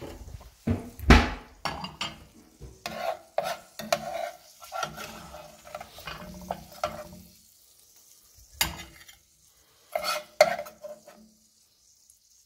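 Metal serving spoon scraping and knocking against a frying pan while a fried egg is scooped out, a series of clatters with the loudest knock about a second in and a few more near the end.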